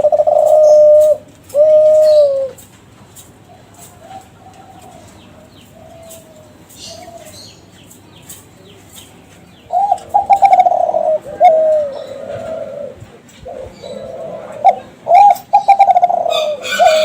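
Kelantan derkuku (spotted doves) cooing in repeated phrases: loud coos at the start and again from about ten seconds in, with fainter coos in between.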